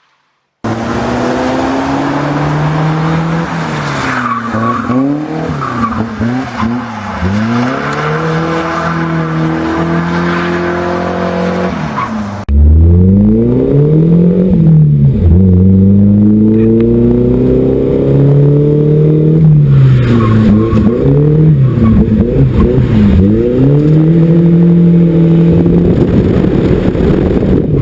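Volvo drift car's engine being revved hard through drifts, its pitch rising and falling over and over as the throttle is worked. The sound starts about half a second in, and about 12 seconds in it jumps to a louder, closer take.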